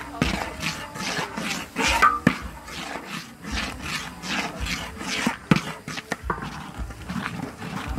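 Metal spatula scraping and stirring a chili paste around a metal wok, a steady run of scrapes at about three strokes a second.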